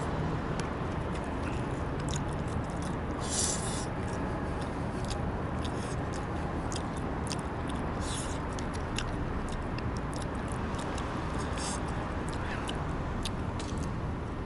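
A person eating: scattered small clicks and scrapes of utensils and a takeout container, with chewing and a few short hissing breaths, over a steady background noise.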